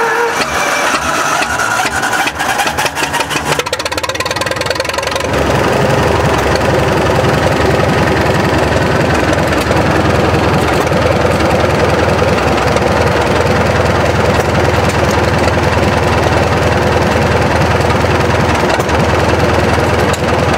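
1943 military 20-kilowatt generator set's gasoline engine cranking over on its starter for about five seconds, then catching and settling into a steady idle.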